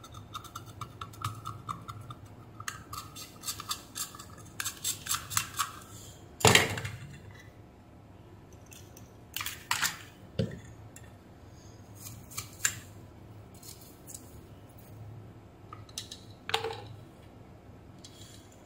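Metal blade scraping solder mask off a circuit board's copper pads in quick short strokes, exposing bare copper. One sharp knock about six seconds in, followed by a few more scattered scrapes.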